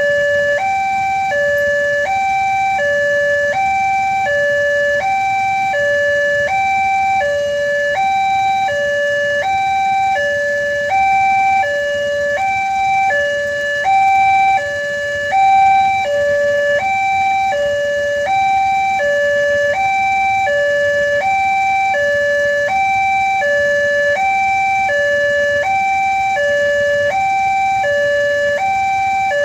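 Electronic level-crossing warning alarm sounding a steady hi-lo two-tone pattern, alternating between two pitches about every 0.7 s, warning that a train is approaching. It swells briefly louder a few times in the middle.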